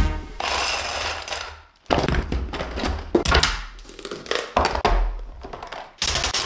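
Cardboard boxes being cut open and handled, and plastic LEGO bricks clattering onto a wooden tabletop in a run of knocks and rattles.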